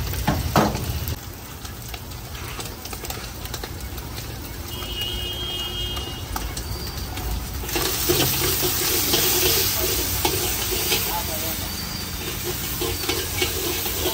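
Steel spatula scraping and knocking against a large iron wok as egg is stirred. About eight seconds in, a loud sizzle starts as rice hits the hot wok, with repeated spatula strokes as it is tossed.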